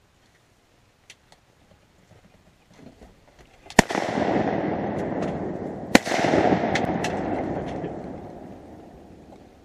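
Two shotgun shots about two seconds apart at ducks over the decoys, each a sharp crack followed by a long rushing tail that fades over several seconds.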